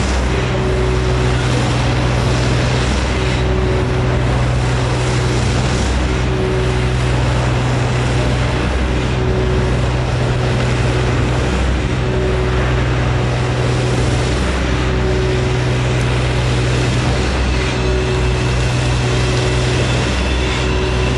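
Shotcrete spraying rig running: a loud, steady deep machine drone that dips briefly about every two to three seconds, under a dense hiss of sprayed concrete and air from the nozzle.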